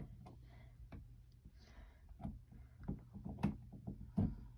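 Scattered light clicks and knocks from handling a vacuum cleaner's power cord and plug as it is pushed into a wall outlet. The vacuum's motor stays off.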